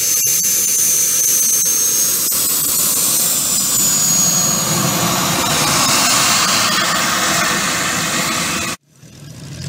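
The miniature gas-turbine engine of a large radio-controlled jet model running on the ground. It gives a loud, steady jet hiss with a thin high whine that rises slightly and then eases. The sound cuts off abruptly near the end.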